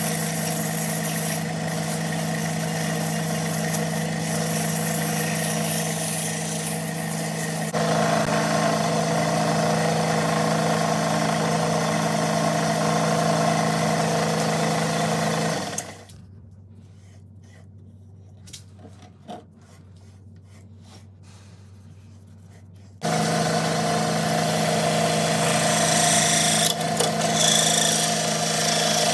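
A power tool's electric motor running steadily with a hum and a rasping noise. It shuts off about 16 s in, leaving a few faint clicks and knocks, and starts up again about seven seconds later.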